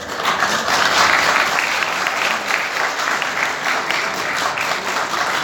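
Audience applauding, a dense steady clapping that starts suddenly as the speech ends.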